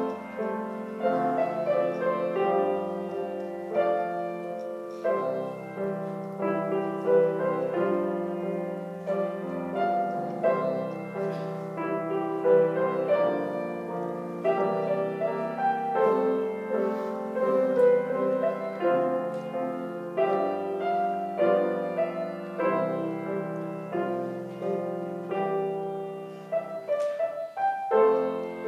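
Grand piano played four hands as a duet: a continuous flow of notes and chords, with a brief pause near the end before the playing resumes.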